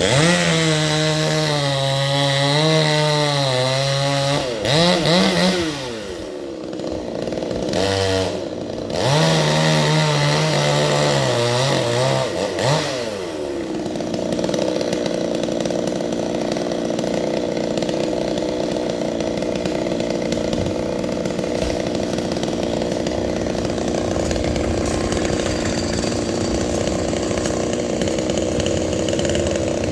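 Chainsaw engine running while cutting a coconut tree trunk. Its pitch wavers and rises in two stretches during the first dozen seconds, then it settles into a steady run for the rest.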